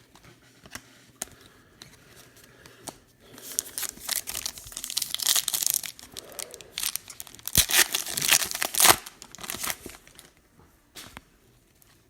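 A trading-card pack wrapper being torn open and crinkled by hand: a few light clicks, then a long stretch of tearing and crackling that is loudest near the end before it stops.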